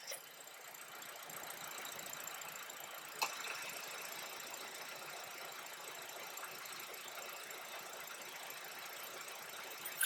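Faint, steady running sound of a 2012 Honda Civic idling, with a single sharp click about three seconds in.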